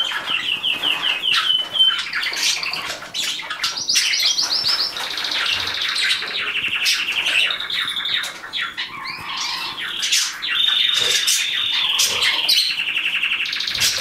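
Domestic canary singing a long, continuous song of fast trills and rolls, switching to a new phrase every second or two, with a steady held trill near the end.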